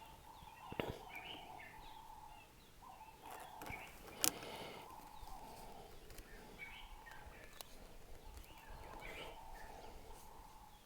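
Faint bird chirps in the background, with a few light clicks and one sharp click about four seconds in.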